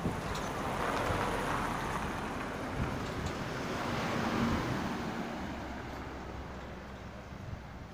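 Road traffic: a small truck drives past close by and pulls away. Its engine and tyre noise swell to a peak about four seconds in, then fade.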